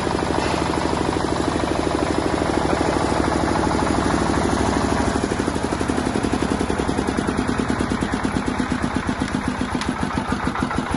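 10 kVA diesel generator engine running with a steady beat of firing pulses. From about halfway through, the beat slows and becomes more uneven, as when the engine is being shut down.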